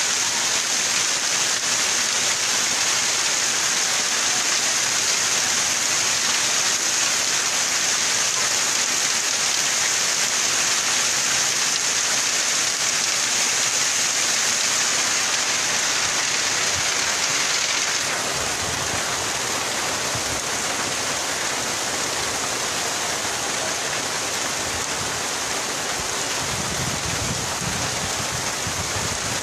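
Heavy rain pouring down steadily. The level drops slightly about two-thirds of the way through, and a low rumbling comes in near the end.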